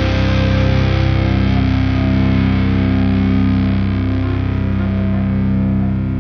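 Hard rock music: distorted electric guitar chords held and ringing out, slowly fading as the song closes.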